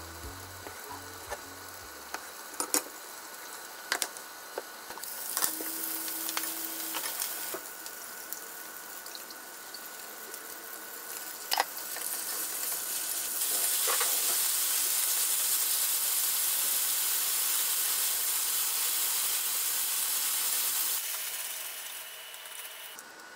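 A knife slicing a rolled omelette on a wooden cutting board, the blade tapping the board a few times over a faint sizzle. Then chicken thigh pieces sizzle in a frying pan as they are stirred with chopsticks. The sizzle gets much louder about halfway through as sauce goes in and the heat is turned up, and eases off near the end.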